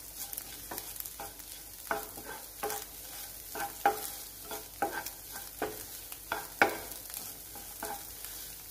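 Wooden spatula stirring and scraping scrambled egg and ground spices around a nonstick frying pan, with short scrapes about once a second over a steady sizzle. The masala is being sautéed in the oil until its raw smell cooks off.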